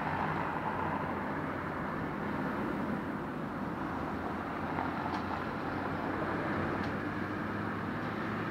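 Boeing 777-300ER's GE90-115B jet engines running as the airliner rolls along the runway: a steady rushing noise with a low hum that keeps an even level throughout.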